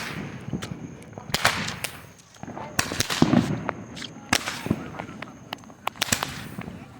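Fireworks going off: an irregular series of sharp cracks and bangs, with heavier booms in clusters several times.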